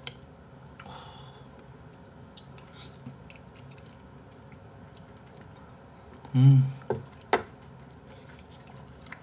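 Quiet eating sounds: a wooden spoon scooping porridge from a bowl, and chewing. About six and a half seconds in comes a short voiced hum, the loudest sound, followed at once by a sharp click as the wooden spoon is set down on the tray.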